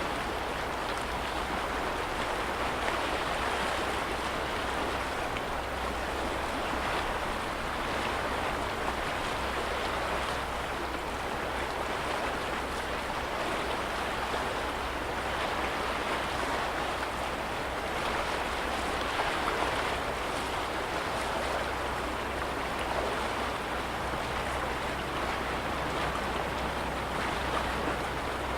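Small waves of a lake lapping steadily against the shore, an even splashing wash with no breaks.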